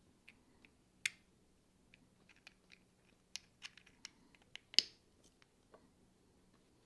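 3D-printed plastic model parts handled and pressed together by hand: a scatter of small sharp clicks and taps, the loudest about a second in and again near five seconds in as the capsule is pushed into its ring.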